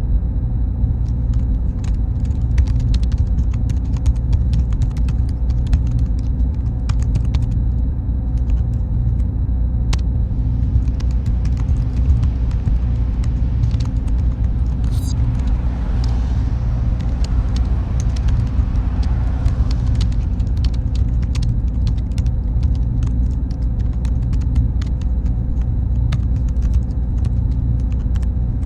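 Server-room ambience: a steady deep machine hum with faint thin whines over it and scattered light clicks.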